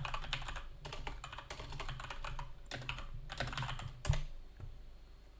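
Typing on a computer keyboard: a quick, uneven run of key clicks, ending with a firmer keystroke about four seconds in, then only a few faint clicks.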